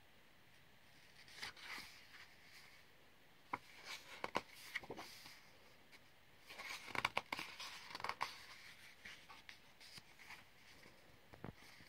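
Paper being handled: the coloring book's pages rustling and brushing, with a few sharp clicks and taps in irregular clusters.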